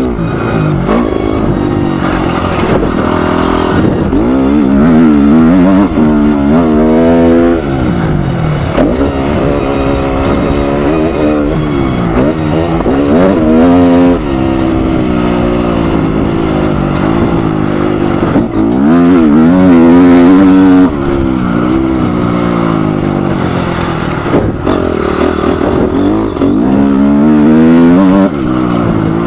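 Honda CRF250R motocross bike's single-cylinder four-stroke engine at full ride, revving hard and climbing in pitch, then dropping as the throttle shuts, over and over through the gears.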